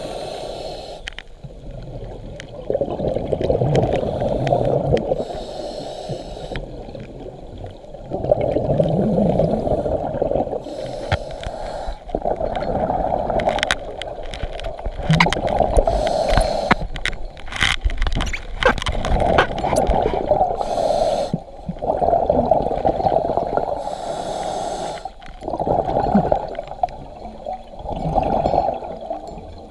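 Scuba diver breathing through a regulator underwater: exhaled bubbles rumble in bursts every few seconds, with quieter inhales between. A few sharp clicks come in the middle.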